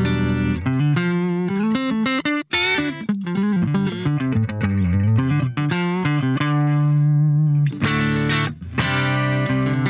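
Electric guitar played through an Xvive V9 Lemon Squeezer compressor pedal, switched on. A held chord gives way to a single-note lead line with bends and vibrato, broken by a brief gap about two and a half seconds in, then ringing chords toward the end.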